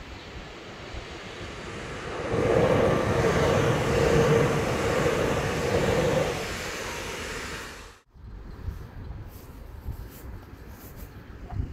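Pesa Elf EN76 electric multiple unit passing: wheel-and-rail noise with a steady mid-pitched hum, building over about two seconds, loud for about four seconds, then fading as the train moves away. The sound cuts off abruptly about eight seconds in, leaving a quieter low rumble.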